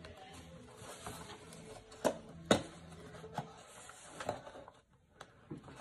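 An action-figure box of cardboard with a plastic window being handled and opened by hand: soft rustling with several sharp clicks and taps, the loudest two about two and a half seconds in.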